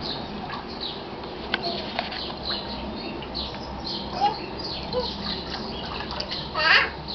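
Small birds chirping repeatedly in quick, short calls, with a few light clicks, and a brief high-pitched child's vocal sound near the end.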